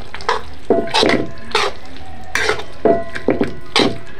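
Flat spatula stirring and scraping wet mushroom curry around a metal kadhai, in repeated strokes about two a second.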